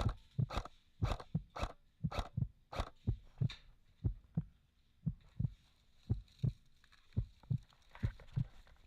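Rhythmic low thumps, about two to three a second. They are sharper for the first three seconds, then come a little slower and duller.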